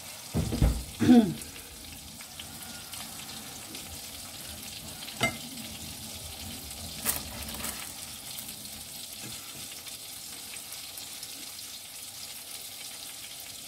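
Mushrooms sizzling steadily in a frying pan, with a couple of loud knocks in the first second or so and a few sharp clicks later on.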